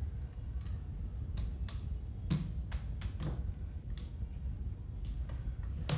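Scattered sharp clicks and knocks, about eight in six seconds, from the parts of an old Arno electric fan being handled as it is opened up for cleaning and lubrication. A steady low rumble runs beneath.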